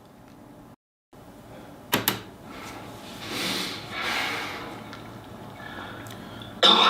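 A person coughing and clearing the throat: two sharp clicks about two seconds in, then a long noisy breath in the throat, and a loud cough burst near the end.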